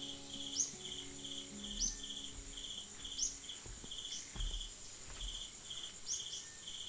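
Insects chirping in an even pulsing rhythm, about two pulses a second, over a steady high-pitched insect drone. Short, sharp rising bird chirps come every second or two.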